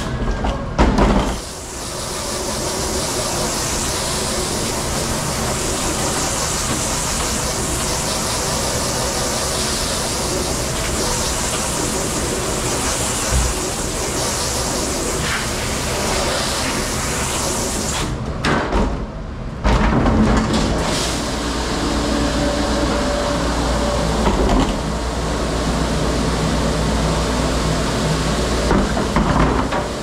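Commercial pre-rinse sprayer hissing as its water jet hits a plastic cutting board. The spray stops briefly twice, once a second or two in and again about two-thirds of the way through, with a few knocks as the board is handled.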